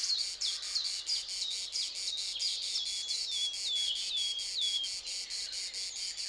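Crickets chirping in an even, rapid pulse. A songbird sings a series of high, falling whistled notes over them, which stop about five seconds in.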